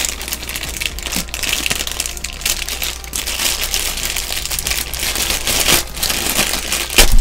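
Thin clear plastic bag crinkling and rustling irregularly as a figure is worked out of it by hand, with a low thump right at the very end.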